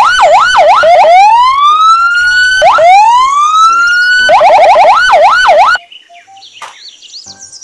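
Police car siren: a fast yelp, then two long rising wails, then a faster yelp that cuts off suddenly about six seconds in.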